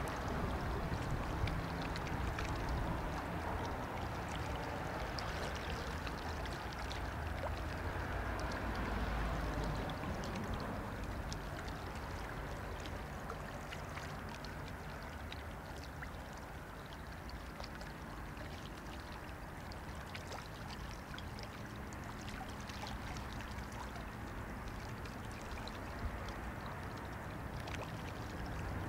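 Steady low drone of a Rhine river ship's diesel engine passing on the river, mixed with water splashing and lapping at the riverbank.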